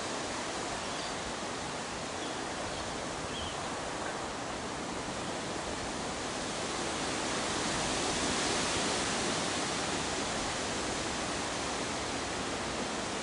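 Steady wind rushing through the trees, a hiss of leaves that swells a little about eight seconds in.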